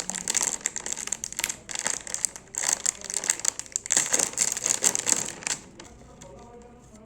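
Plastic snack packet of Fun Flips masala puffs crinkling as it is handled and opened, dense irregular crackles that die away about five and a half seconds in.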